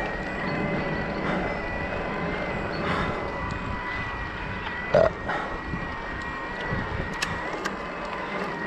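Electric mountain bike being ridden on a paved lane: wind and tyre noise with a steady high whine. One short loud sound comes about five seconds in.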